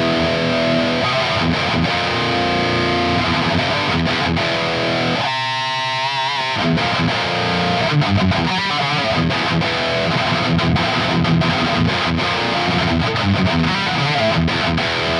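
Laney GH100TI all-tube amp played at high gain with an overdrive pedal boosting it, an electric guitar playing a fast palm-muted thrash metal riff with a tight low end. About five seconds in a higher chord rings briefly without the low chugs.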